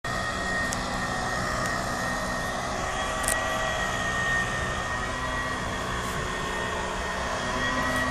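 A small engine running steadily at a constant speed, with a high, steady whine over it.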